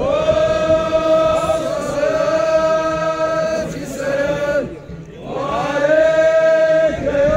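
Male voices chanting together in long, drawn-out held notes, with a short break about five seconds in before the chant starts again.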